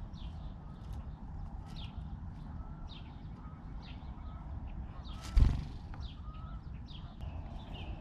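House sparrows chirping, short high cheeps about once a second over a low background rumble, with one sharp thump about five seconds in.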